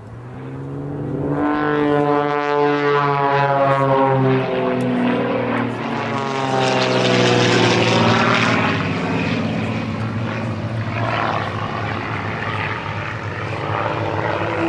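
XtremeAir XA41 aerobatic aircraft flying a display: the piston engine and propeller drone, growing loud about two seconds in as a plane passes close. The pitch slides down as the aircraft go by.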